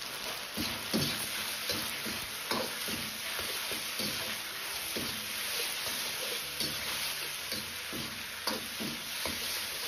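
Sliced pork and chunks of red onion sizzling in a hot wok as they are stir-fried. A metal wok spatula scrapes and clicks against the pan now and then.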